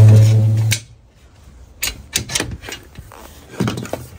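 A loud, low, steady hum for under a second at the start, then scattered clicks and knocks from the phone and leash being handled.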